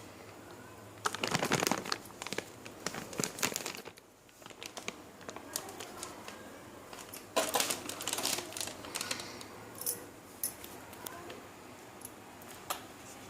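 Crinkling and rustling with light clicks and clinks of kitchen handling, in two busy spells about a second in and again past the middle, then scattered single clicks; the mixer grinder's motor is not running.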